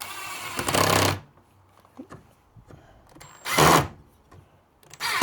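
Power drill running in short bursts as a screw is driven into thin wood: a spell of about a second at the start, a shorter one partway through, and another at the end. The drill is set to reverse, which is why the screw goes in so hard.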